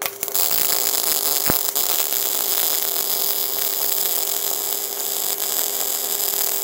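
Two Smart Mig 232 MIG welders arc-welding at once, one on 1 mm gasless flux-cored wire and the other on gas-shielded ER70S-6 wire. The arcs strike suddenly and give a steady crackling sizzle. A faint steady hum runs underneath.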